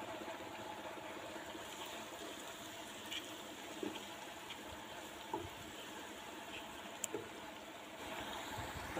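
Onions, tomatoes and green chillies sizzling in oil in a non-stick wok, with a few light knocks and scrapes of a wooden spoon stirring them.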